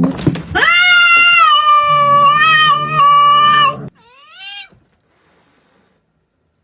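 A cat yowling loudly in one long, drawn-out call of about three seconds, then a shorter rising-and-falling meow.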